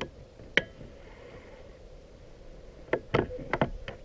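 Sharp knocks and clicks of handling in a kayak: one about half a second in, then a quick cluster of four or five near the end.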